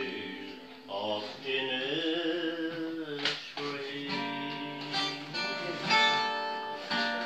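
An elderly man's voice singing the slow closing notes of an Irish ballad, long held notes that waver in pitch.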